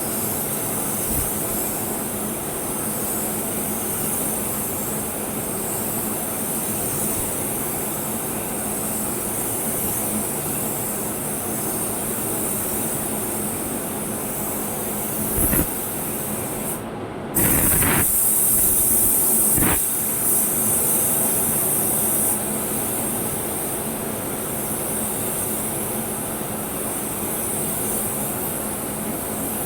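Steady hiss of compressed air through a paint spray gun, with a short break just past the middle and a few seconds of louder spraying after it.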